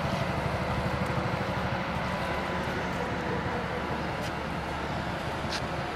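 Steady engine rumble over general fishing-harbour noise, with a motorcycle riding past near the start.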